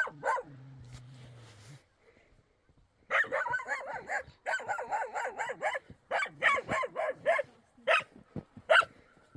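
A dog barking: a couple of barks at the start, then a fast run of yapping barks for a few seconds, then single barks every half second or so.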